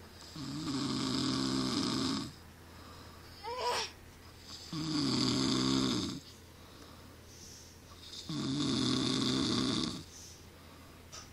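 A man snoring: three long, rattling snores, each breath about four seconds apart, with a short rising squeak between the first two.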